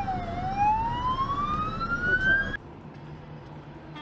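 Ambulance siren on a slow wail: the pitch bottoms out just after the start, then rises steadily for about two seconds before cutting off abruptly about two and a half seconds in. After the cut, quieter, steady road noise.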